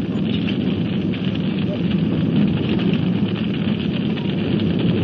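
Large fire burning steadily: a dense, even rushing noise with fine crackling throughout.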